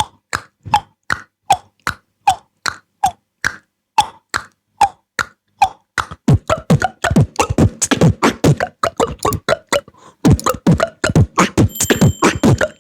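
Beatboxed mouth clicks imitating a table tennis ball knocked back and forth, evenly spaced at about two to three a second. About halfway through it turns into a denser, faster beatbox rhythm with deep kick-drum sounds.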